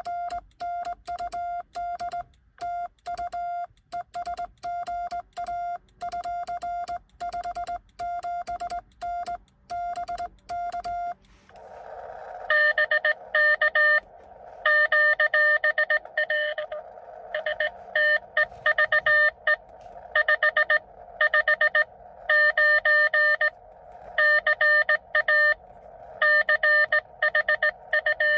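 Morse code from a Xiegu X6100 transceiver: a clean sidetone beeps in dits and dahs as a home-made cootie sideswiper key sends. About eleven seconds in it gives way to a received CW signal, Morse tones over steady receiver hiss from the radio's speaker.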